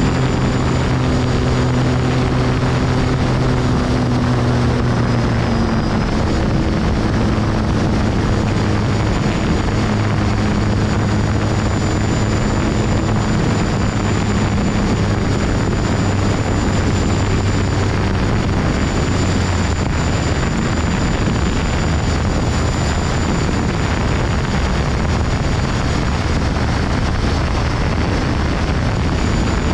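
A light aircraft's piston engine and propeller running steadily in flight. The engine note drops a little about five or six seconds in as power is eased back, then holds.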